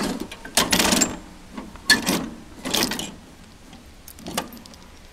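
Riding mower's gear shift lever being moved through its notched gate: four metallic clunks and rattles about a second apart, the shifting now working after the driveshaft repair.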